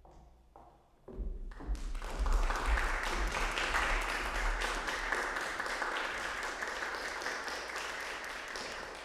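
Audience applauding; it starts suddenly about a second in and fades away near the end.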